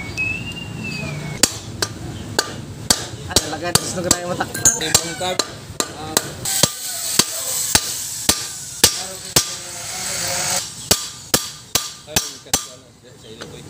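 Hammer striking a steel punch to set the rivets that fasten a new lining to a dump truck's brake shoe. It is a long run of sharp metal blows, about two a second, that begins a second and a half in and stops near the end.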